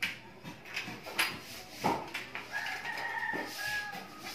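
A drawn-out pitched animal call lasting about two seconds, starting about two seconds in, over clicks and rustling of copper wire being pulled from welding-machine scrap.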